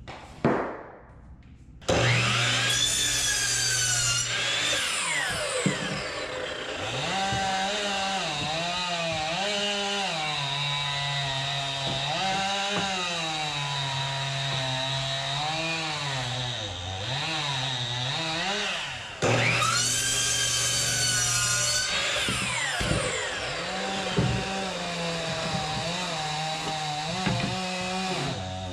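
Electric miter saw running and cutting laminate flooring planks, in two long runs that each start abruptly, one about two seconds in and one about nineteen seconds in, the motor's pitch wavering as the blade works through the plank. A short sharp knock comes just before the first run.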